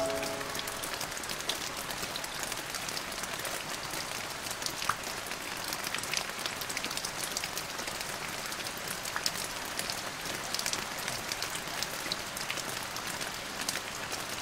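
Steady rain falling: an even hiss with many separate drops ticking on a hard surface.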